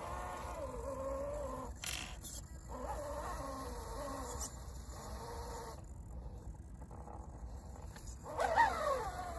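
Electric drivetrain of a 1:10 scale Axial SCX10 II crawler whining as it crawls, the pitch wavering with the throttle. There is a short scrabble about two seconds in, and near the end a louder whine rises sharply in pitch and falls back.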